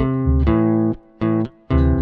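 Background music of plucked guitar notes over a deep bass line, with a short break about a second in.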